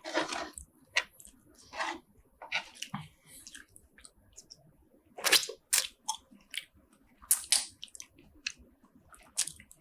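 Close-miked chewing and crunching of spicy seafood such as shrimp and squid, a string of irregular bites and mouthfuls, loudest a little past halfway.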